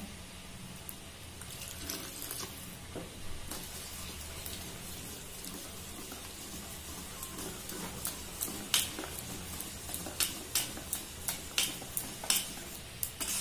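Wire whisk stirring a thick semolina-and-yogurt batter in a stainless steel bowl, a steady wet swishing. From about two-thirds of the way in, the whisk clicks against the bowl's sides about twice a second.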